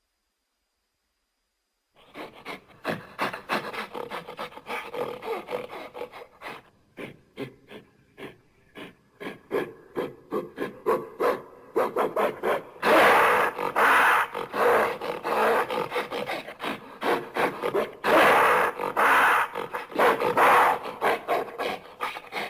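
Gorilla calling after a brief silence: a rapid run of short panting grunts, broken by louder, longer roaring calls about 13 and 18 seconds in.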